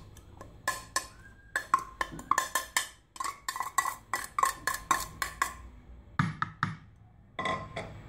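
A rapid run of sharp knocks, about three or four a second, as a small plastic bowl is tapped to knock chopped parsley out onto mashed potatoes. After a short pause come two brief runs of a few more taps near the end.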